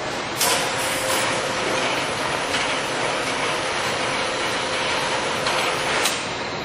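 Leblond 19-inch by 84-inch Servo Shift engine lathe running while its spindle is shifted up from 80 to 219 RPM. A clunk comes about half a second in, followed by louder, steady gear noise from the headstock with a faint hum in it. Another click comes about six seconds in, and the noise then eases back.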